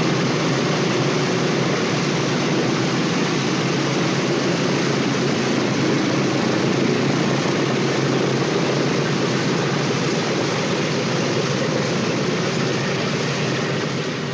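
Boeing B-17's four radial engines idling, heard from inside the aircraft: a steady, dense drone that starts to fade away near the end.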